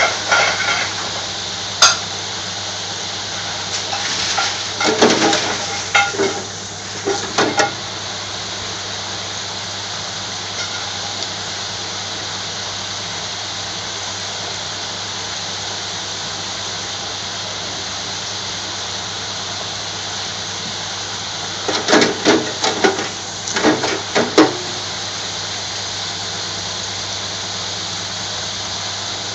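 Chips deep-frying in a commercial electric deep fryer: a steady sizzle of bubbling hot oil. Two bursts of metal clattering break in, one around five to seven seconds in and one near the end.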